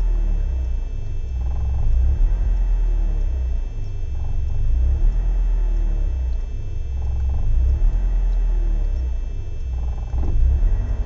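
BMW E36 318is's M42B18 1.8-litre four-cylinder engine idling roughly, a low rumble that swells and sags unevenly every second or two. It is a persistent rough idle, cold or warm, that the owner has not traced.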